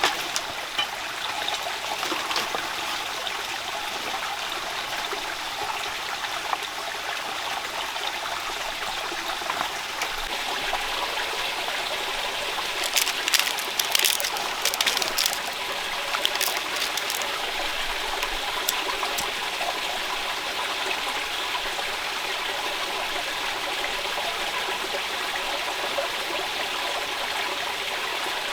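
Steady rush of running water, with a few sharp clicks or taps about halfway through.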